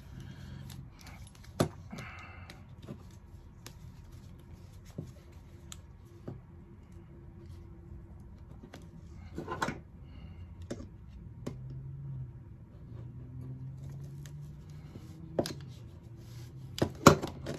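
Scattered clicks and knocks from a metal ratchet-strap buckle being handled while jammed webbing is worked out of it, with a few sharper clicks near the end.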